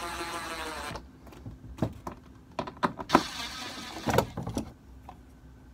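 DeWalt cordless impact driver running with a steady motor whine that dips slightly in pitch and stops about a second in. A string of sharp clicks and knocks follows.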